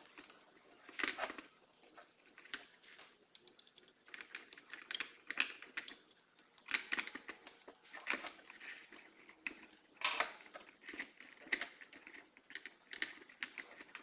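Hands handling electrical wires and small hand tools such as pliers on a wooden table while connecting a supply cord: scattered light clicks, taps and rustles.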